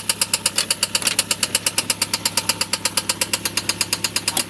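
Citroën BX 16 TRS's 1.6-litre four-cylinder petrol engine running with a loud, regular knocking, about eight knocks a second, which the owner thinks may be a valve hitting in a cylinder.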